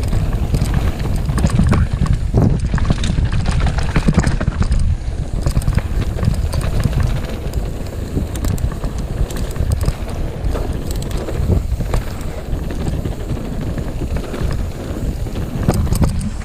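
Mountain bike descending a rough trail at speed: wind buffeting the microphone over the rumble of tyres on dirt and stones, with frequent quick rattles and knocks from the bike over bumps.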